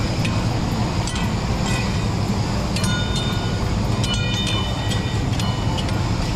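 Steady roar of the open burner flames under a row of karahi woks, with long metal ladles clinking and scraping against the woks. About halfway through come a few ringing metal clanks.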